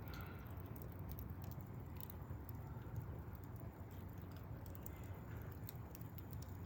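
Wood fire burning in a fireplace: irregular small crackles and pops over a low steady rumble of the flames.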